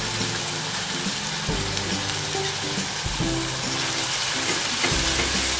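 Green masala paste and ground spices sizzling in hot oil in a non-stick kadhai, being stirred with a silicone spatula: the masala is being fried on a low flame until the oil separates.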